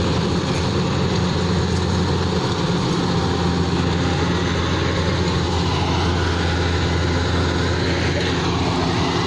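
Rice combine harvester running steadily: a constant low engine hum under the clatter of the machine.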